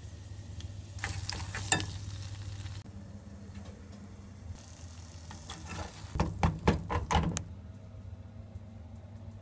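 Garlic and tomato purée sizzling in a saucepan while a metal spoon stirs and scrapes, strongest from about a second in. Later comes a short run of louder knocks and clinks, all over a steady low hum.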